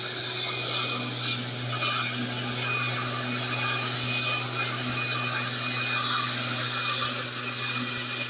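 Small engine of a backpack motorized mist-blower sprayer running steadily: a constant drone under a strong high hiss.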